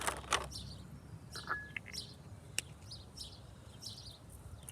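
Small birds chirping repeatedly in short high notes, about two a second, with a single sharp click about two and a half seconds in.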